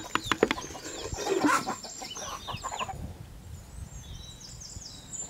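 Chickens clucking, with a few sharp clicks near the start. In the second half, small birds chirp in quick, high repeated trills.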